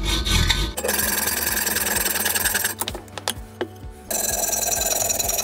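Hacksaw cutting through a stainless steel exhaust pipe: fast rasping strokes with a metallic ringing from the tube, stopping for about a second in the middle before starting again.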